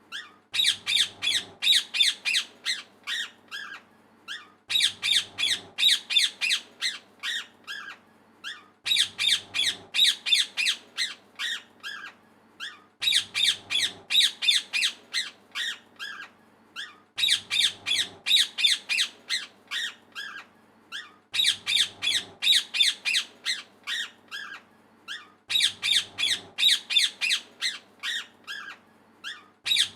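Parrot squawking: bursts of rapid, harsh calls, the same sequence repeating about every four seconds.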